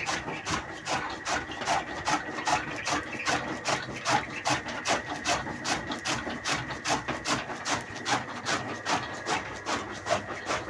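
Chaff cutter running and chopping fodder: rapid, regular chopping strokes, several a second, over a steady high whine.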